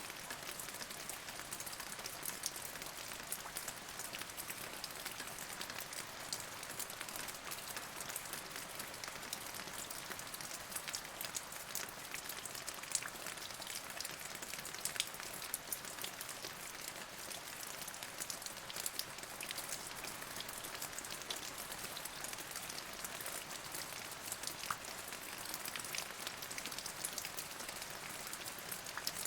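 Steady rain falling, with many distinct drop hits ticking among the even hiss.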